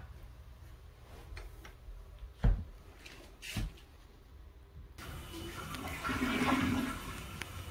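Two dull knocks about a second apart. Then, from about five seconds in, a sudden rushing sound like running water that swells and eases off.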